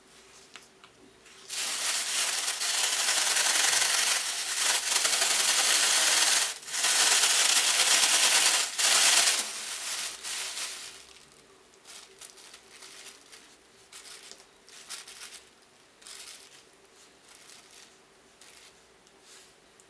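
Plastic bag crinkling loudly as walnut halves are shaken and rubbed inside it for about nine seconds, starting about a second and a half in. After that come quieter, scattered rustles of the bag and light clicks of the nuts being handled.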